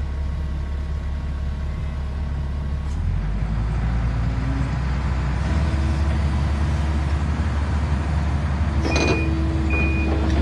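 Kobelco SK200-10 hydraulic excavator's diesel engine running steadily, its low hum shifting in pitch about three seconds in and growing louder soon after. Near the end a travel alarm starts sounding in short, evenly repeated beeps.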